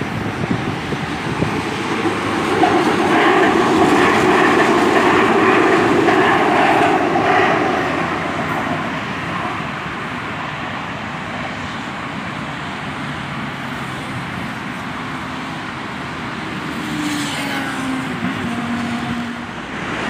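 Hyundai Rotem Series 2000 electric metro train running past on the track, a rumble of wheels and running gear that swells for several seconds in the first half and then eases. Near the end a whine falls in pitch.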